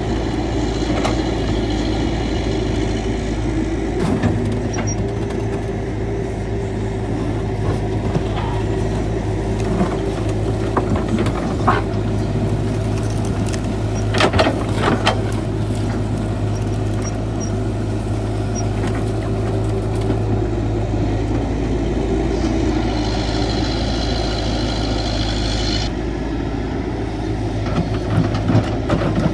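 CAT 312 hydraulic excavator's diesel engine running steadily. A few sharp knocks come about halfway through, and a high whine lasts a few seconds about three-quarters of the way in.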